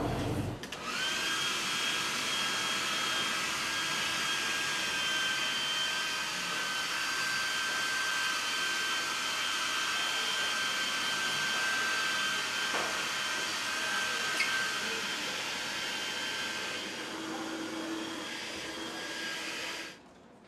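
Hair dryer running steadily with a high whine, its motor spinning up about a second in and switching off near the end.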